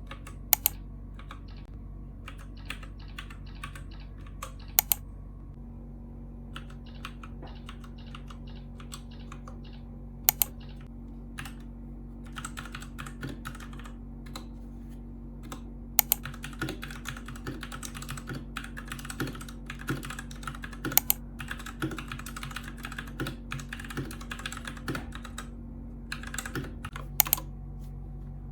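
Typing on a Royal Kludge RK61 mechanical keyboard with linear red switches: scattered keystrokes at first, then fast continuous typing from about twelve seconds in, with a few louder sharp clacks standing out. A steady low hum sits underneath.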